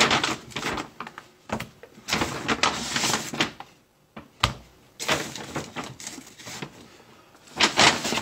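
Brown paper takeout bag rustling and crinkling in bursts as food containers are lifted out of it and set down on a table, with a sharp knock about halfway through.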